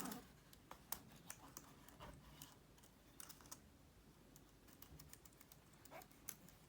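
Faint, irregular clicking of MacBook Pro keyboard keys as a damp cotton bud is rubbed and pressed over them.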